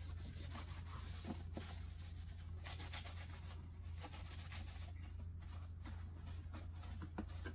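Faint rubbing and scratching with small clicks as hands refit the air filter parts inside a Honda EU1000i inverter generator, over a low steady hum.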